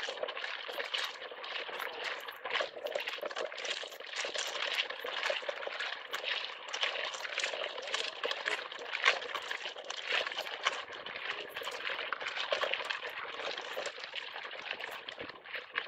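Rain pattering on waterproof clothing close to the microphone: a steady, dense crackle of small ticks.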